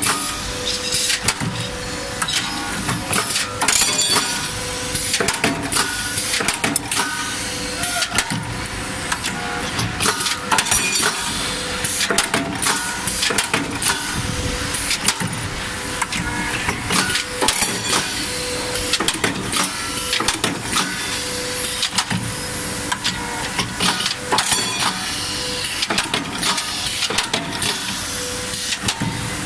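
CNC steel flat-bar punching and shearing line running: a dense, steady clatter of metallic clicks and knocks as the bar is fed, punched and sheared, with a short hum that comes back about every one and a half seconds.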